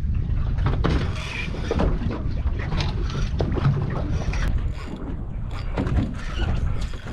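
Noise aboard a small fishing boat: a steady low rumble with wind on the microphone, and scattered knocks and clicks throughout.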